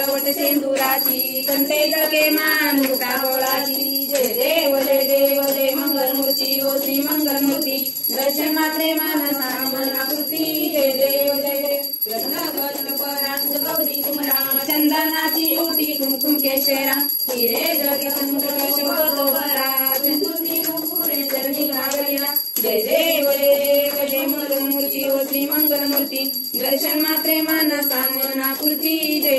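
A devotional aarti song, sung in phrases of a few seconds each with short breaks between them, over a hand bell rung steadily during the aarti.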